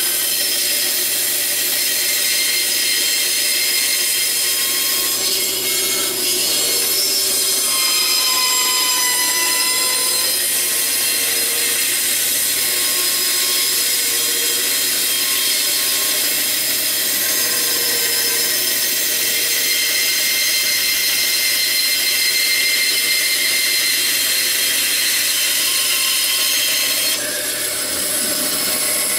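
Bandsaw running on its high speed setting, its blade cutting through a block of walnut about 1.5 inches thick. The cutting noise is loud and steady, with a brief dip in level near the end.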